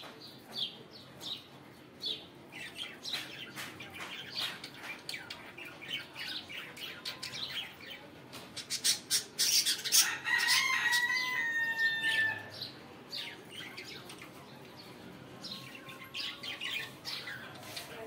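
Caged budgerigars chirping and chattering in quick, short calls. A louder flurry of calls comes about nine seconds in, with a long whistle that falls slightly in pitch.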